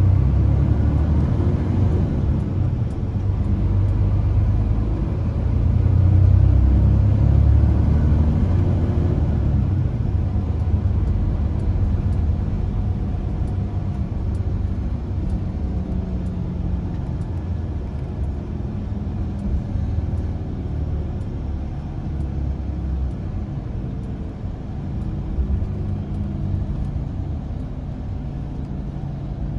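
Mercedes-Benz Tourismo coach on the move, heard from inside the passenger cabin: a steady low engine and road rumble that is strongest in the first third and eases off in the last few seconds as the coach slows.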